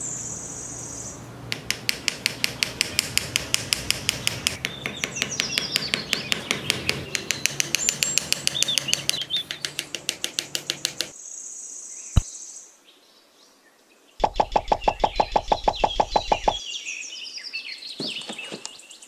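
Small birds chirping over a fast, even clicking that runs for most of the first half and stops suddenly. After a short quiet gap a second, quicker run of clicks follows.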